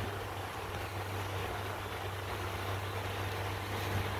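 Motorboat under way, its engine running steadily with a constant low hum, over the rushing of water and wind along the hull.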